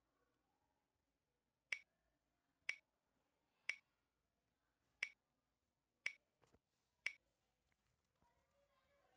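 Six sharp, separate clicks, roughly one a second, with near silence between them.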